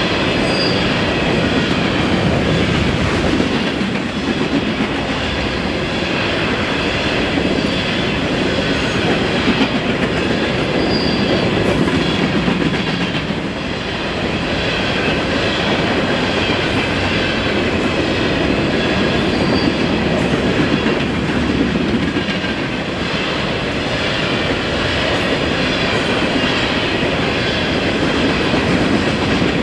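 Empty grain shuttle train's hopper cars rolling past, a loud, steady rumble and clatter of wheels on rail, with a few faint, brief wheel squeals.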